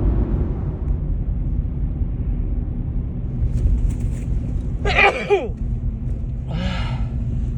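A woman sneezes about five seconds in, a sharp burst whose voice falls in pitch, then gives a shorter, breathier burst just before the end: repeated allergy sneezing. A steady low rumble runs underneath.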